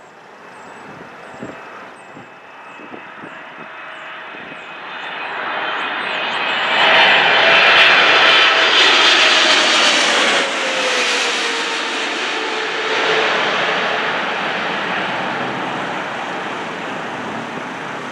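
Boeing 777-300ER jet engines on final approach, growing louder as the airliner passes low overhead. An engine whine falls steadily in pitch as it goes by, then the jet noise fades slowly as the plane moves away.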